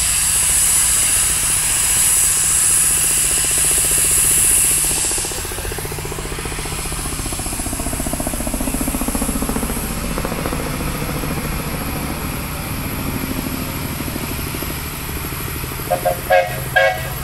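Steam traction engines at a steam show: a loud, steady high hiss of steam blowing off for about five seconds that stops abruptly, followed by a quieter low running sound. Near the end come about four short pitched toots, typical of a steam whistle.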